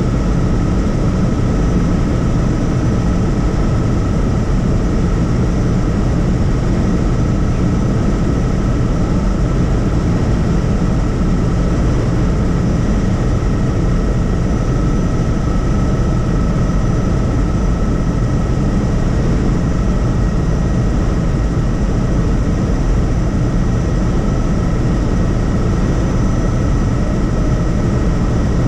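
Helicopter in flight: a loud, steady drone of rotor and engine with a constant high whine running over it.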